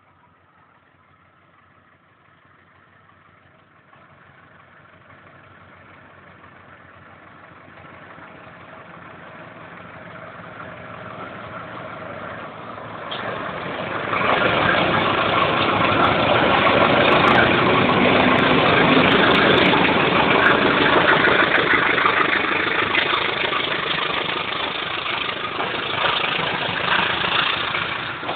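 Diesel locomotive hauling a passenger train approaches, its engine growing steadily louder for about fourteen seconds. It then passes close by, and the sound becomes a loud, steady rush of the coaches rolling past on the rails.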